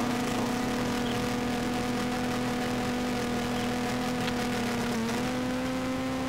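A motor running steadily at one pitch, which dips briefly and recovers about five seconds in.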